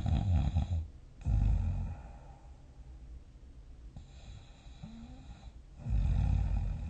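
A person snoring in their sleep, with deep rattling snores. One snore ends just under a second in, a shorter one follows about a second in, a quieter breath comes through the middle, and another snore near the end.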